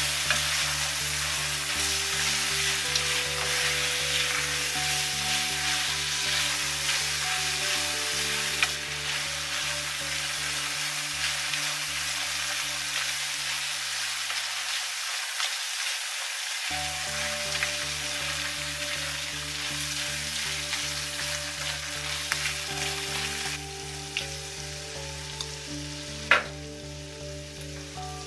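Sauced tofu cubes sizzling as they fry in a nonstick pan, stirred and scraped around with a silicone spatula; the sizzle thins out toward the end, with one sharp knock near the end.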